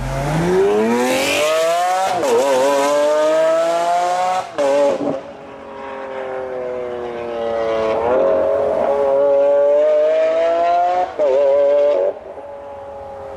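A high-performance car engine accelerating hard through the gears. The pitch climbs and then drops sharply at each upshift, about four times, and near the end it settles to quieter, steadier running.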